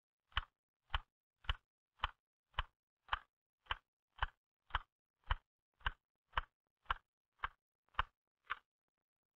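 Typewriter keys struck one at a time at an even, slow pace, about two strokes a second, sixteen in all. This is a beginner's typing drill for accuracy and finger control, done before it is sped up.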